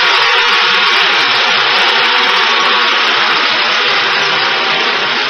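A large crowd applauding and cheering in a dense, steady wash of noise that eases slightly near the end.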